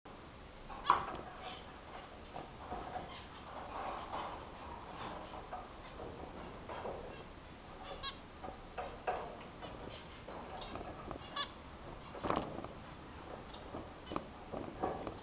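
A flock of zebra finches calling: many short, repeated calls overlapping throughout, with a few sharp knocks, the loudest about a second in.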